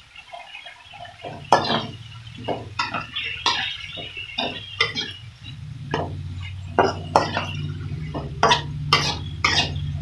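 Metal spatula scraping and clinking against a wok as vegetables and meatballs are stir-fried, in irregular strokes. Underneath is a low steady hum that grows louder about halfway through.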